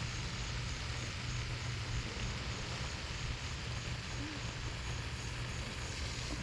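Steady outdoor background noise: a constant low rumble with an even hiss above it, and no distinct event.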